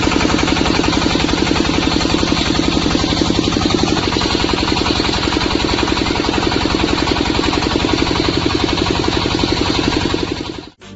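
Diesel engine of a portable water well drilling rig running steadily with a rapid, even beat; the sound cuts off suddenly near the end.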